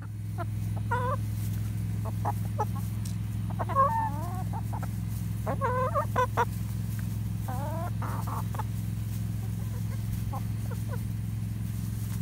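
A flock of chickens clucking: short clucks scattered throughout, with a few longer bending squawks, the loudest about four seconds in, over a steady low hum.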